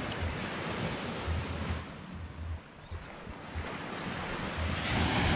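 Wind buffeting the microphone over the steady wash of surf on the shore, easing briefly about halfway through.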